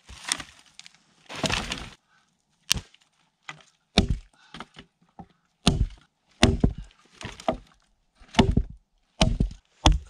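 Firewood being broken up: two longer rustling scrapes within the first two seconds, then about eight sharp wooden cracks and knocks, roughly a second apart.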